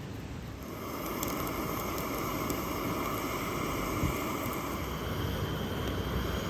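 Strong gusty wind rushing, swelling about a second in and holding steady.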